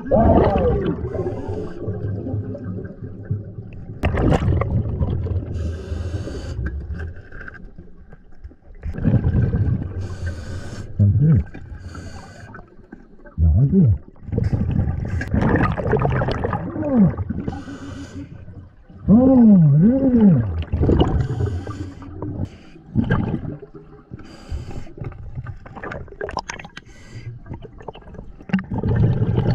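Underwater sound from a river diver: muffled, wordless vocal sounds through the water and snorkel that glide up and down in pitch, several times, once as a pair of hums near the middle. They come over a wash of water noise with a few sharp knocks, the loudest about four seconds in.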